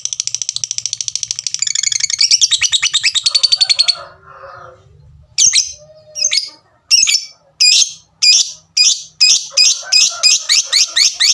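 Lovebird giving a rapid, rattling 'ngekek' chatter that stops about four seconds in; after a short pause it starts sharp 'tik' calls, slow at first and speeding up to about three a second, the ticking lead-in that goes on into its long chatter.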